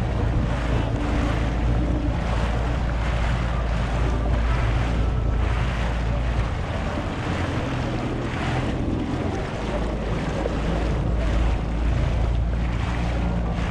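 Yamaha SVHO jet ski's supercharged engine running steadily, the drone easing for a few seconds midway, with water splashing against the hull in repeated surges and wind buffeting the microphone.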